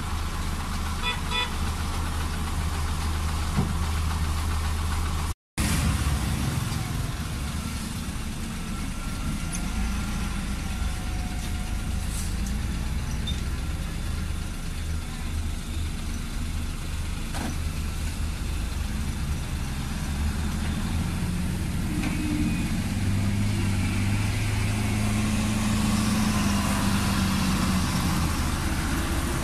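Heavy diesel dump truck engines running with a steady low rumble, alongside construction machinery at work.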